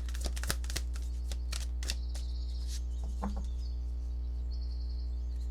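Tarot cards being shuffled and snapped, a quick run of clicks over the first two seconds, then stopping. A steady low hum runs underneath, with faint high bird chirps twice.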